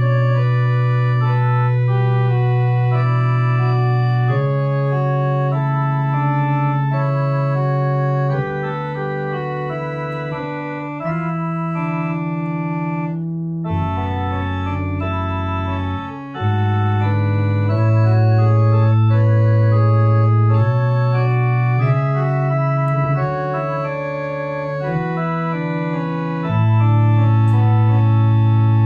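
Two-manual home electronic organ played with manuals and pedals: slow, sustained chords over long held pedal bass notes that change every few seconds, with a brief break in the sound about halfway through.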